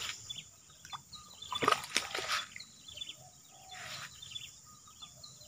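Footsteps splashing and sloshing through shallow muddy water and brushing the grass, loudest in a few bursts about two seconds in and again near four seconds. Birds chirp and an insect drones steadily.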